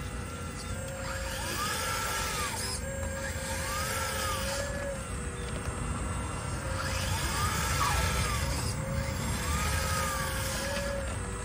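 Radio-controlled hydraulic excavator, a long-boom Caterpillar 320 scale model, working its arm and boom: its hydraulic pump runs with a steady whine, and about four short rising-then-falling whines come as the valves shift under load.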